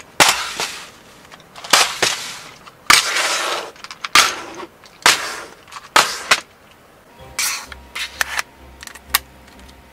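Trays of loose plastic Lego bricks set down and shifted on a table: a series of about eight sharp clacks, each followed by a short rattle of bricks, the first few the loudest.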